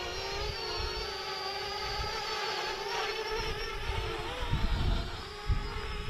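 Parrot Bebop 2 quadcopter hovering, its propellers giving a steady whine whose pitch wavers slightly as it holds against the wind. Wind gusts rumble on the microphone, most strongly a little past the middle.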